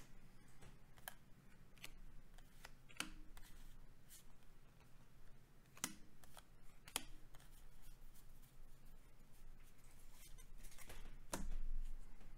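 Magic: The Gathering trading cards being handled and sorted: scattered light snaps and clicks as cards are flicked apart and laid down on piles, with a longer, louder rustle about eleven seconds in.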